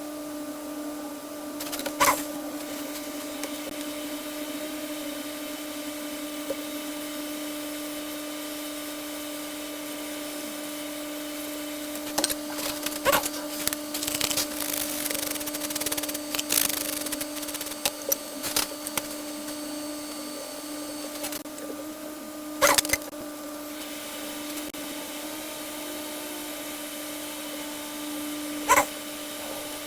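Steady hum and hiss of running microsoldering bench equipment, with a few sharp clicks of metal hand tools and a stretch of scraping and clicking at the board roughly halfway through.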